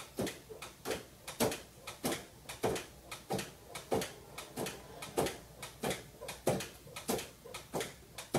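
A small cat flap in an interior door clacks against its frame in a steady rhythm, about one knock every two-thirds of a second, as a cat bats it with its paw.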